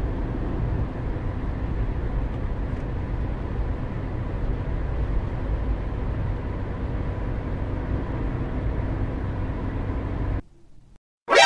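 Car engine running steadily, cutting off abruptly near the end.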